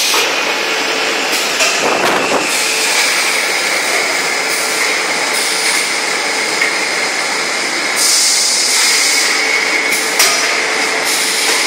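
Tissue packing machines running: steady mechanical clatter and clicking under a constant machine whine, with a hiss lasting about a second around eight seconds in.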